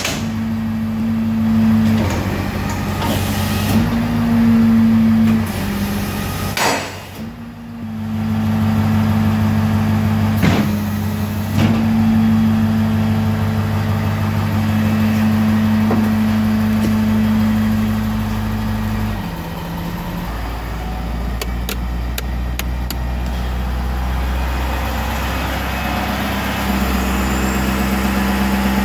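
Tow truck running with its PTO-driven hydraulic pump working the wrecker boom: a steady mechanical hum that drops to a lower drone about two-thirds of the way through, with a few sharp clunks in the first half.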